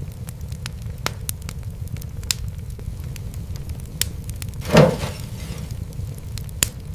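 Wood fire crackling: scattered sharp pops and snaps over a steady low rumble. About five seconds in, one louder pop trails off over about a second.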